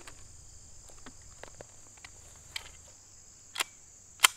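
Insects trilling steadily in the grass, over a few sharp clicks and knocks as a pistol with a golf ball launcher is handled and picked up off a folding table, the loudest click near the end.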